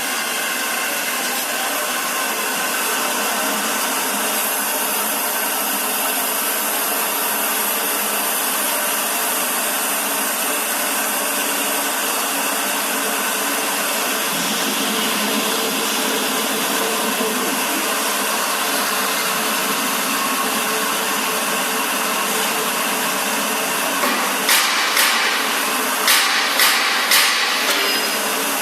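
Manual keg washing machine running with a steady whirring noise. Near the end come about six sharp, loud bursts in quick succession.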